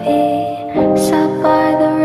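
Background music: a gentle, lullaby-like melody of sustained notes that change every half second or so, with a new phrase starting about three quarters of a second in.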